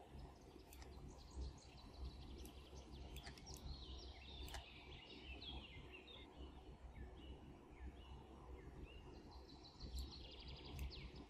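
Faint birds chirping in the background over a low steady hum, with a few faint clicks about three to four and a half seconds in.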